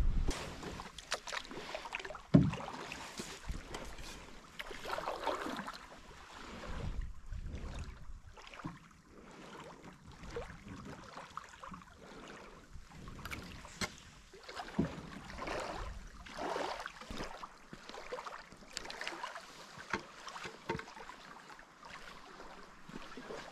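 A solo canoe being paddled: irregular paddle swishes and splashes with light knocks on the hull, and one sharp, loud knock about two seconds in.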